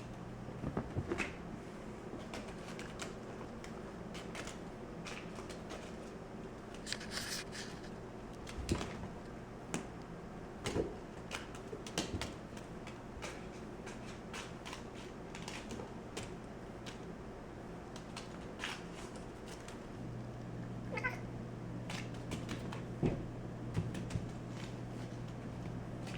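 A cat meowing now and then, among scattered light taps and clicks, over a steady low hum.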